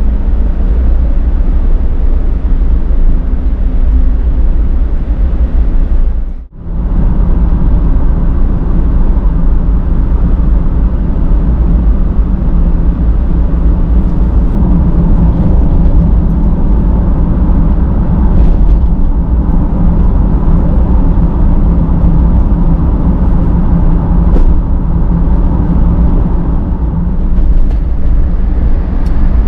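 Suzuki Every kei van driving, its engine hum and road noise heard steadily from inside the cabin, with a brief drop about six seconds in.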